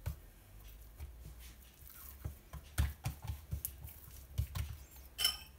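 Oiled hands pressing and spreading thin, layered msemen dough on a countertop: irregular soft taps and low thuds of palms and fingers on dough and counter, with a brief sharper clink near the end.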